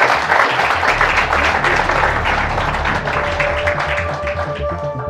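Audience applauding, with background music fading in underneath: pulsing bass notes from about a second in, then steady held tones from about three seconds in. The applause stops abruptly at the very end and the music carries on.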